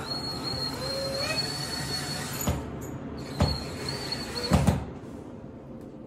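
Cordless drill driving screws into a wooden baseboard: the motor whines in two runs with a short stop about two and a half seconds in, and a few sharp knocks, the loudest near the end of the second run.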